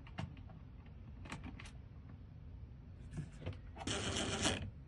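A screwdriver driving the cylinder retaining screw into a mortise lock: a few faint small metal clicks, then a brief scraping rattle of metal parts near the end.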